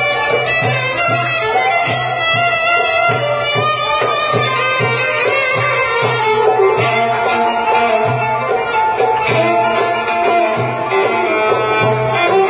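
Traditional Turkish dance music: a melody over a steady, evenly repeating drum beat.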